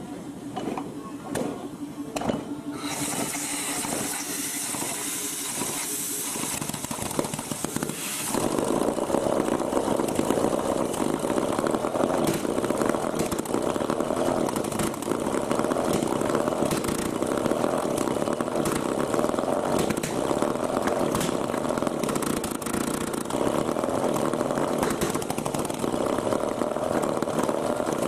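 A homemade prototype rotary engine turning over with regular ticks. About eight seconds in it picks up and runs louder and steadily.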